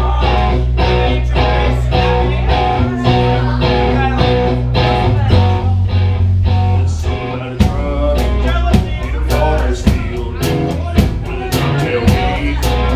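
Live rock band playing an instrumental passage: electric guitar, bass and drum kit, with the drum hits coming more densely from about halfway through.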